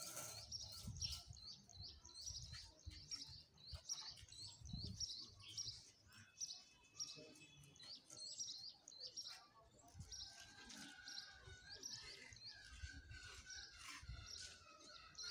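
A small bird chirping over and over, one short high chirp about twice a second, faint, over a low rumble.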